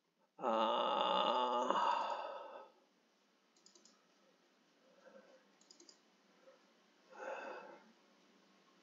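A man's drawn-out wordless vocal sound, a hum-like 'hmm' lasting about two seconds, then a few faint computer mouse clicks, and a short breathy vocal sound near the end.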